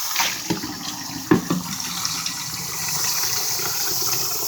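Tap water running steadily while a dish is rinsed out under it, with a few sharp knocks in the first second and a half.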